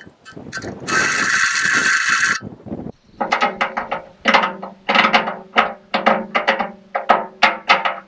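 A handheld drill boring into the hardened steel lip of a tractor loader bucket: irregular clicking, then about a second and a half of loud, high-pitched drilling noise. From about three seconds in, guitar music with plucked notes takes over.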